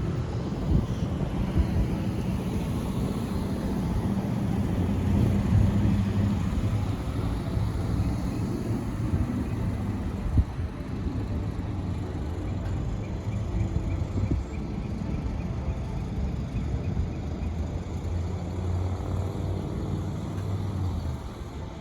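Car running: steady engine hum and road noise.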